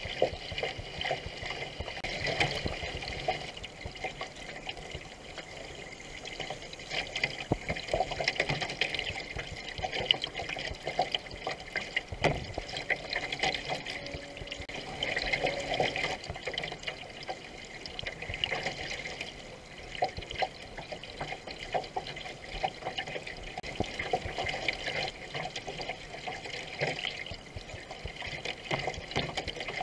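Canoe paddles dipping and pulling through river water, with irregular splashes and water rushing along the hull of a racing canoe under way.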